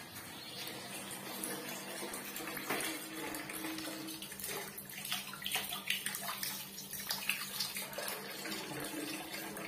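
Water running from a wall-mounted bath mixer tap and splashing over a hand held under the stream. The tap is drawing water through a Paloma gas water heater that is being checked.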